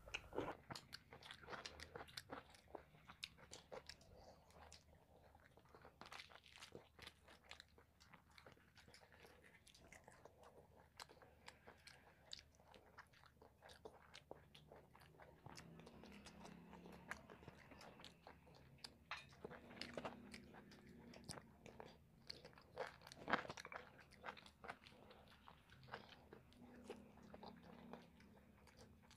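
Faint eating sounds: chewing, mouth clicks and smacks as two people eat luchi and chicken curry with their hands.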